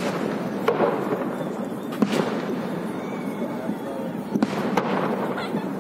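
Fireworks display: aerial shells bursting with several sharp bangs at uneven intervals over a continuous background din.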